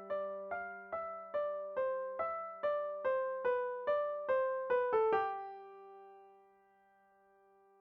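Electric piano playing a melody of even single notes, about two to three a second, over a held low note. The tune ends on a note about five seconds in that rings out and fades away.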